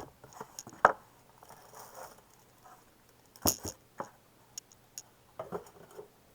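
Unpacking a boxed wax warmer by hand: irregular knocks, taps and clicks of cardboard and packaging with light rustling in between. The sharpest knocks come about a second in and about three and a half seconds in.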